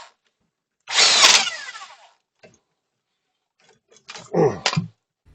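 Handheld power tool on a sway bar link nut, run in a burst of about a second, its motor whining down in pitch as the trigger is let go. A shorter sound with a falling pitch follows near the end.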